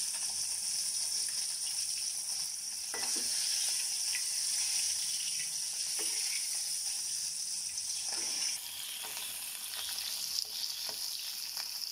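Pieces of taki (spotted snakehead) fish shallow-frying in hot oil in a metal wok: a steady sizzle, with a few scrapes and clinks of a metal spatula turning the fish. The sizzle drops a little after about eight seconds.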